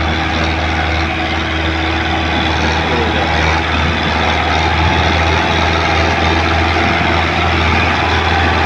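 Diesel tractor engine running steadily under load while hauling a heavily loaded sugarcane trolley, with a strong constant low hum.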